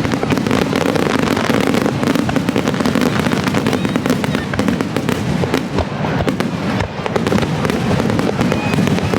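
Aerial firework shells bursting almost directly overhead, a dense, continuous barrage of sharp bangs and crackles in quick succession.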